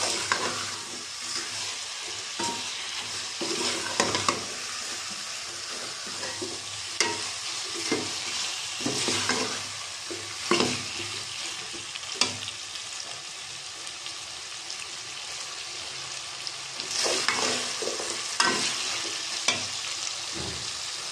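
Potato slices and tomato sizzling in hot oil in a metal pot, while a metal ladle stirs them, scraping and knocking against the pot every second or so. The stirring eases for a few seconds past the middle, leaving mostly the sizzle, then starts again.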